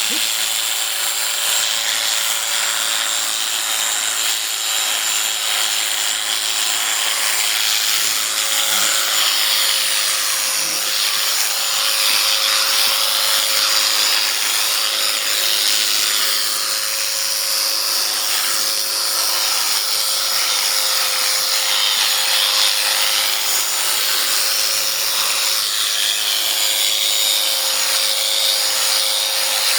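Electric sheep-shearing clippers running steadily while shearing, a continuous motor whine with the rasping of the cutter through the fleece.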